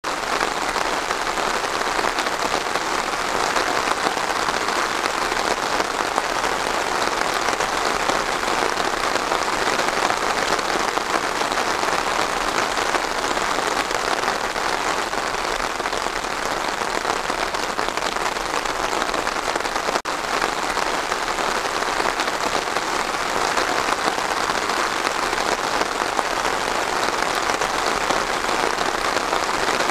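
Steady rain falling on pine trees, an even hiss of many drops. It drops out for an instant about two-thirds of the way through.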